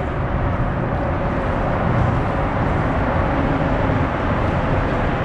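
Steady rumble of road traffic crossing the bridge above, an unbroken noisy hum.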